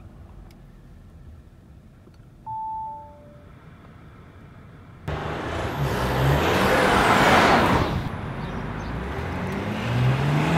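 Audi Q8: first a two-note falling chime from the car in a quiet cabin. About five seconds in, the SUV drives past with tyre and engine noise swelling and fading, then its engine note rises as it pulls away near the end.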